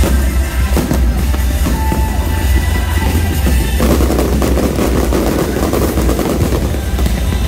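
Aerial fireworks going off in quick succession: rapid sharp bangs like gunfire, thickening into a denser volley about four seconds in, over music.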